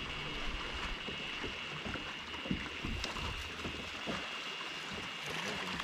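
Small waves lapping and gurgling against the hull of a bass boat, with a few soft knocks, over a steady faint high-pitched hum.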